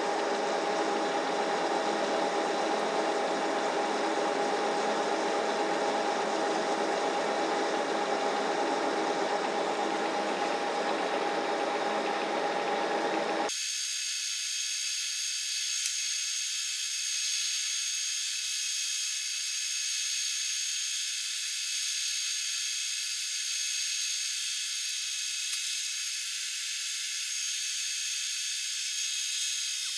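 Metal lathe running while an insert tool turns a small steel pin, a steady machine drone with steady tones. About 13 seconds in the sound changes abruptly to a thin, high hiss with steady high-pitched tones and no low end.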